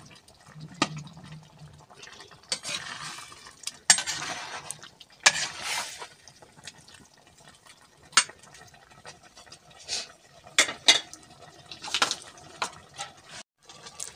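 A metal spoon stirring food in a glazed clay pot, with irregular clinks and scrapes against the pot's sides.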